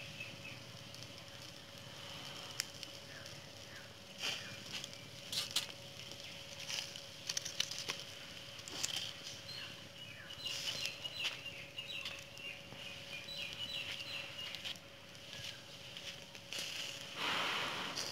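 Wood-and-charcoal fire crackling with irregular sharp pops under marinated chicken cooking on a wire grill rack, with birds chirping in the background. A short rushing noise rises near the end.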